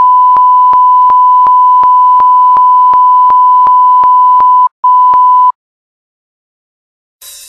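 A loud, steady electronic beep at a single pitch, with a faint tick nearly three times a second. It breaks off briefly about four and a half seconds in, comes back for under a second, then cuts off suddenly.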